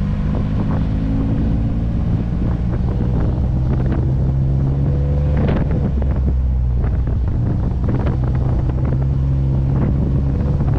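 Ford Bronco's engine running steadily at low revs while being driven along an off-road trail, its pitch rising and falling slightly, with scattered knocks and wind on the microphone.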